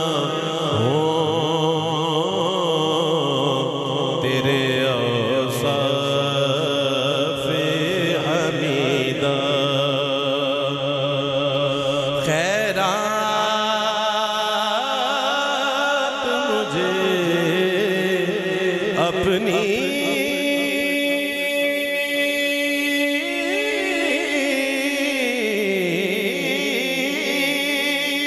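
A man singing a Punjabi devotional naat into a microphone, drawing out long melismatic lines with held, wavering notes.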